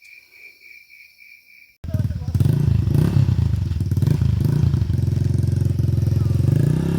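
Insects chirping in a steady pulse, about four chirps a second, cut off suddenly about two seconds in by a dirt bike engine running loud, its revs rising and falling several times as it is ridden.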